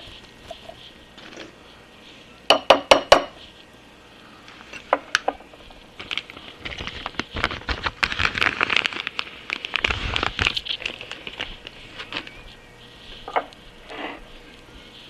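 Four quick, sharp metal taps about two and a half seconds in: a punch being tapped to drive a press-fit ball oiler into the cast-iron apron of an Atlas 10F lathe. Later comes several seconds of rapid small clicks and clatter from handling the small parts.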